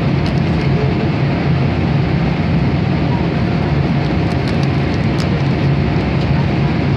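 Steady cabin noise of an airliner in flight: engine and airflow noise that holds even throughout, heaviest in the low range. A few faint light ticks sound over it.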